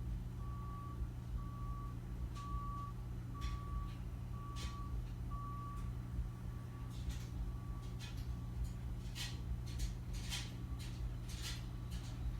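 Repeated electronic beeps on one mid-pitched tone, about one half-second beep every second, loud for the first six or so and then fainter. A steady low hum runs underneath, and several sharp clicks come in the second half.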